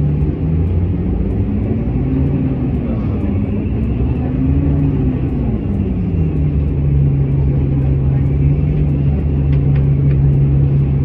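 Bus engine running, heard inside the cabin as a loud steady rumble and hum. Its pitch rises and falls once a few seconds in, then settles back to a steady drone.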